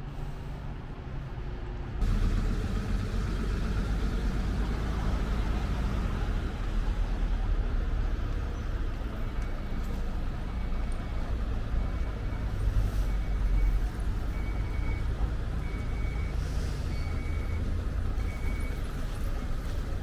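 Road traffic: a steady rumble of passing vehicles that grows sharply louder about two seconds in. From about halfway through, a run of short, evenly spaced beeps at one pitch sounds over it, like a vehicle's reversing alarm.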